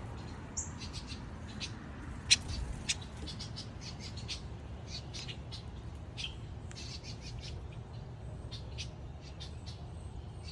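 Songbirds giving many short, high chip notes, scattered irregularly, with one sharp click about two seconds in.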